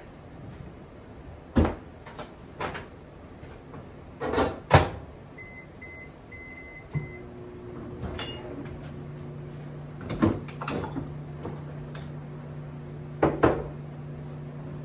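Microwave oven being set to heat: a few knocks and clunks, then a run of short high-pitched keypad beeps about halfway through, after which the oven starts up with a steady low hum that carries on, with more knocks over it.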